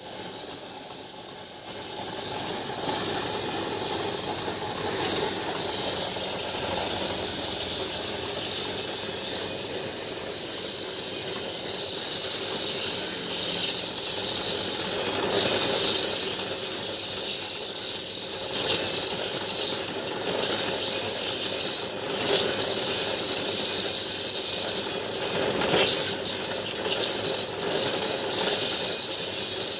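Homemade satay-skewer sharpening machine running, its motor spinning with a steady high hiss and rasp as the skewers are sharpened. The level swells and dips every few seconds.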